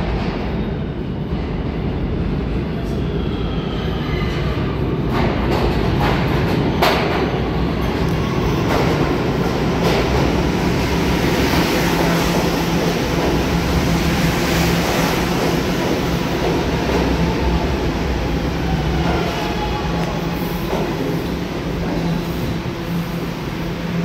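New York City subway train in motion: a steady rumble of wheels on the rails. A few seconds in, a motor whine rises in pitch, and a second whine comes near the end.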